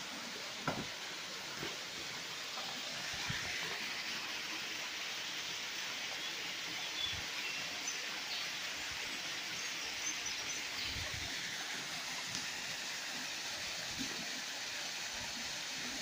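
Steady rush of a waterfall, with a few faint bird chirps and some soft low thumps.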